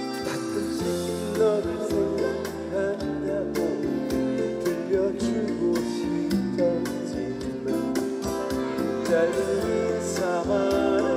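Band music with strummed acoustic guitar under sustained chords and a melody line.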